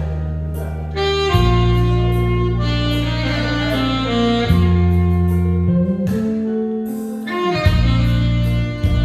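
Saxophone playing a slow melody of long held notes over a backing track with sustained bass and a steady drum beat.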